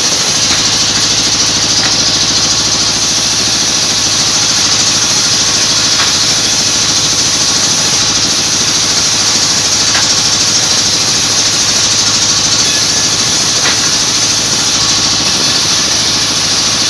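Large band saw running steadily while planks of jackfruit wood are ripped on it: a loud, even cutting hiss over a low motor hum, with a few faint clicks.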